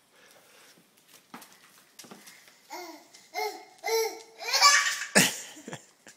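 Toddler babbling in short vocal bursts that build to a loud, high squeal, with a sharp thump just after it.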